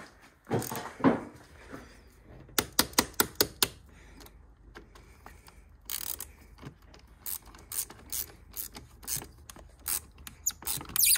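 Ratchet wrench clicking in short runs as it tightens a car battery terminal clamp during reconnection. There are a couple of knocks about a second in.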